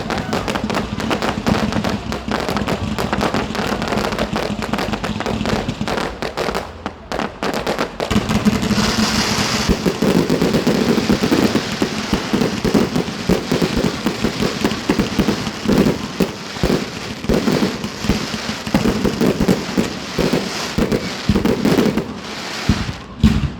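Fireworks going off in a dense barrage of bangs and crackles, with a hiss about nine seconds in and more spaced-out, separate bangs in the second half.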